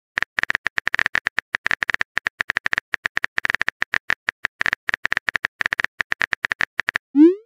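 Simulated phone keyboard typing clicks, rapid and even at roughly nine a second, as a chat message is typed out. Near the end, a short rising swoosh as the message is sent.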